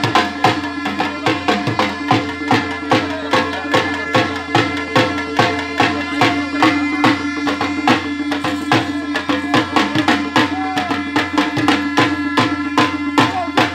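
Loud music with a fast, even drumbeat and a sustained note held underneath.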